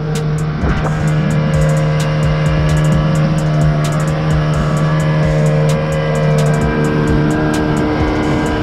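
Yamaha 25 hp four-stroke outboard running at steady high revs, pushing a small inflatable boat at planing speed, with the rush of wake and spray.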